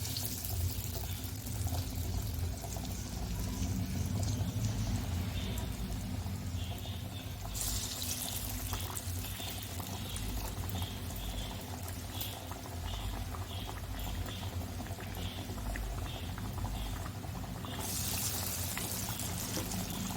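Lumps of chana dal vada batter deep-frying in hot oil: a steady sizzling and bubbling that swells louder about eight seconds in and again near the end.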